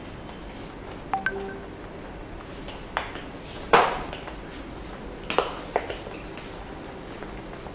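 A few sharp taps and knocks of a marker and board eraser against a whiteboard. The first pair, about a second in, rings briefly like a ping. The loudest knock comes a little under four seconds in, and two lighter ones follow between five and six seconds.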